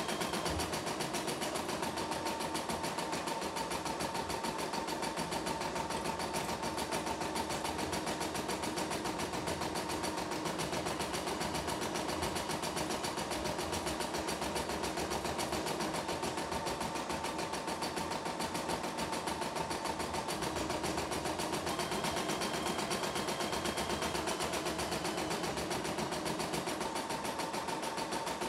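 CNY E960 computerized embroidery machine stitching lettering on fabric. The needle runs in rapid, even strokes with a steady whine underneath, without pause.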